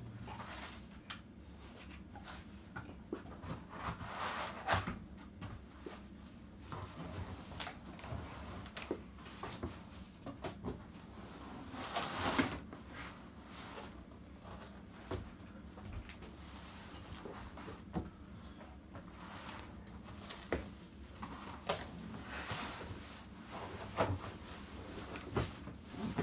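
Cardboard guitar shipping box and plastic packing handled during unboxing: scattered knocks and bumps with short scraping, rustling swishes, the longest about halfway through.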